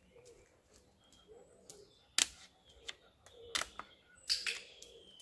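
A few sharp clicks in the second half, the loudest about two seconds in: a dog-training clicker marking the dog as it puts a front paw onto a plastic stool, with taps from the paw. Birds chirp faintly in the background.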